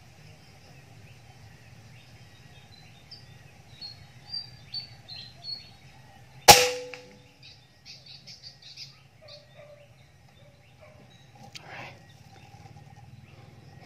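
A single rifle shot about six and a half seconds in, a sharp crack with a brief metallic ring, fired at a quail in the scope. Before it, a run of short high bird chirps.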